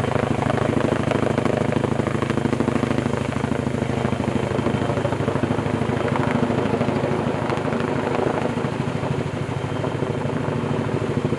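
Tandem-rotor Vertol heavy-lift helicopter hovering under load as it lifts three 40-foot logs on a long line. Its rotor blades beat rapidly and steadily over a constant engine drone.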